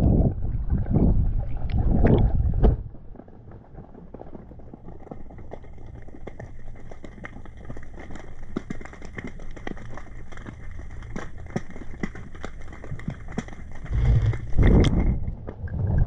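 Underwater audio from a submerged action camera: heavy, muffled rumbling surges of water movement, loudest for the first few seconds and again near the end, with a steady scatter of small crackling clicks between them.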